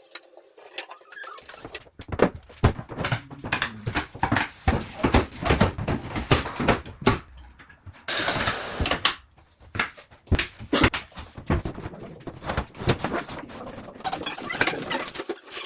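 Quick, irregular knocks, clicks and clatters of hard objects being handled, with a short stretch of rustling noise about eight seconds in.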